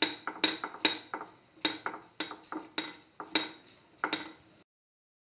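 Spatula scraping and clacking against the pan while a beef, scrambled egg and potato stir fry is stirred, a sharp knock roughly twice a second. The sound cuts off suddenly about four and a half seconds in.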